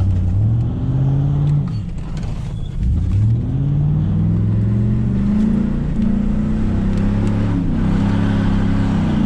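Pickup truck engine heard from inside the cab as the truck accelerates, its pitch climbing and then dropping back as it shifts up, about two seconds in and again later.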